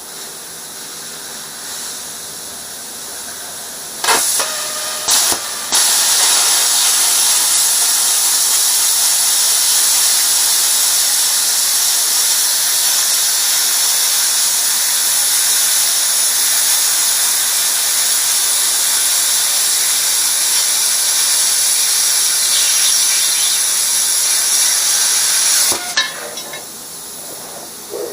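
Plasma cutter cutting steel plate: two short bursts of hiss, then a steady loud hiss for about twenty seconds that cuts off sharply near the end.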